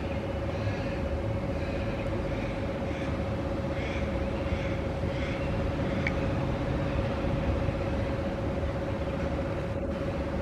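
Steady mechanical rumble with a constant hum, like a running engine or machinery.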